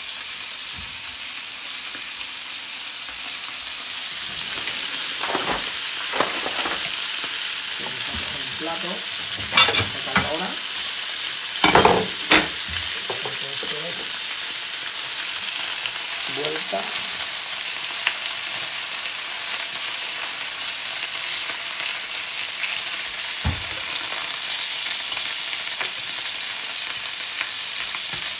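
Roe deer steaks and potato slices sizzling on a hot ridged griddle pan over high heat. The sizzle grows louder about four to five seconds in as more steaks are laid in, with a few brief knocks around ten to twelve seconds in.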